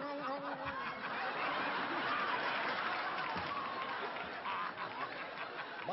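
Audience laughing and applauding, swelling after about a second and thinning out near the end.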